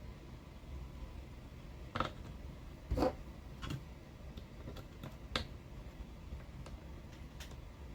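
Small hard parts of an RC car's front differential clicking and tapping as they are handled and test-fitted by hand: a few sharp clicks, the loudest about two and three seconds in, with fainter ticks between.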